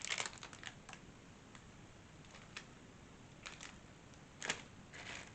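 Scattered light clicks and taps of small assembly hardware being handled: a quick cluster at the start and a louder click about four and a half seconds in.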